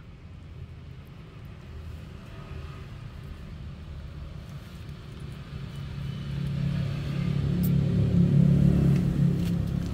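Low rumble of a motor vehicle's engine, growing louder from about six seconds in and loudest near the end.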